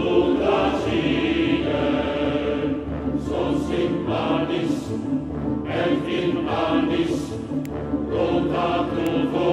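Choral music: massed voices singing sustained chords with a steady, dense sound.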